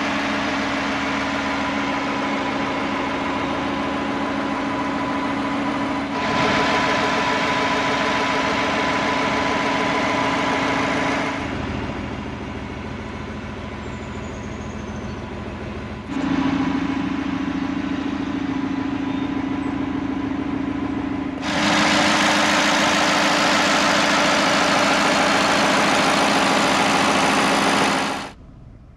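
2021 Ford F-150's 5.0 Coyote V8 idling steadily, heard in several clips joined together, so the level jumps up or down every few seconds. It cuts off shortly before the end.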